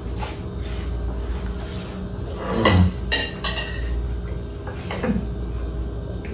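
Forks and plates clinking during a meal: scattered light clinks and knocks of cutlery on dishes, a few of them ringing briefly. There is a louder short sound with a falling pitch near the middle.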